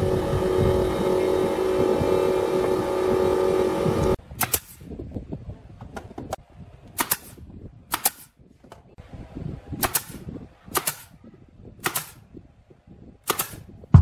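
A pneumatic nail gun firing single shots into pine roof boards, about seven sharp cracks a second or so apart. Before them, for about the first four seconds, a steady machine noise with a hum runs and then cuts off.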